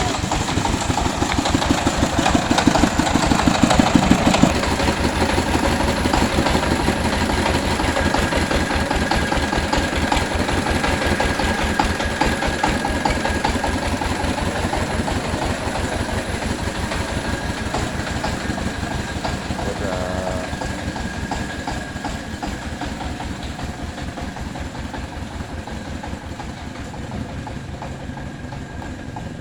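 Engine of a three-wheeled mobile rice huller running with a rapid, steady chugging, loudest about four seconds in and slowly growing fainter after that.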